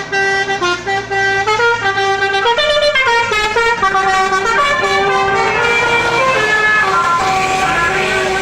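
Bus 'telolet' horn: a set of musical air horns playing a quick tune of stepping tones. A rush of hissing noise builds near the end.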